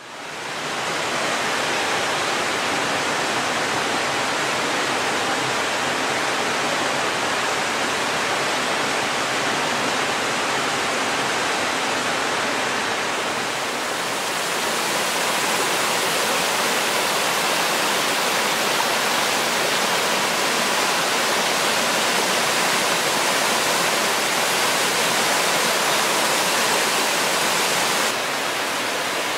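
Mountain waterfall cascading over rocks into a pool: a steady rushing of water. It fades in at the start, turns brighter and a little louder about halfway through, and drops slightly near the end.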